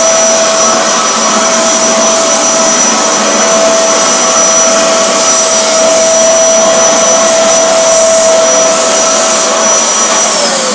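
Eureka Forbes X-Force vacuum cleaner running steadily with a whine over a rushing hiss; near the end it is switched off and its pitch starts to fall as the motor spins down.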